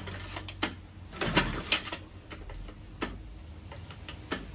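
Recoil starter cord of an old Mariner 20 hp two-stroke outboard yanked again and again, a series of short, sharp rasping pulls as the engine turns over without catching. It is being cranked without choke.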